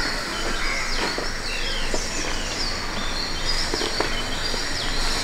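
Birds chirping, short falling calls repeated throughout, over steady outdoor background noise, with a few faint clicks.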